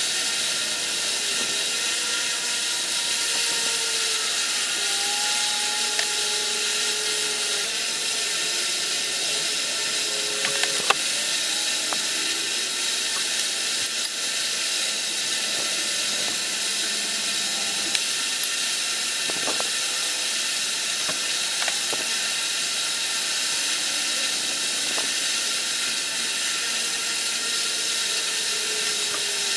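Steady hiss of room background noise, with a few sparse, sharp clicks as a micrometer and the steel crankshaft are handled.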